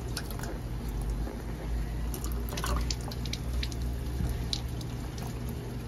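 Water purifier's pump running with a steady low hum while trapped air is bled from a loosened filter fitting after a filter change: water spits and drips out in irregular little splashes as the air escapes.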